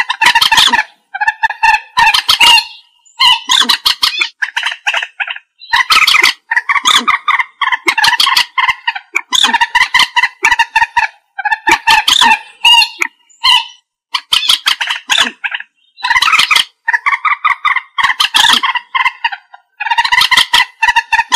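Common moorhen calling: loud, repeated phrases of rapid, stuttering clucks, each lasting about half a second to a second, with short pauses between them.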